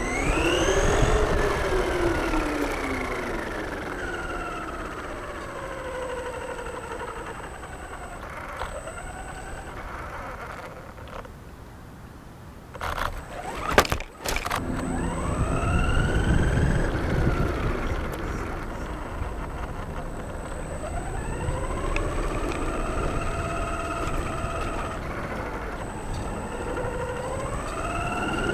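Radio-controlled model car's motor whining, its pitch rising and falling again and again as the throttle is worked, with a few sharp knocks about halfway through.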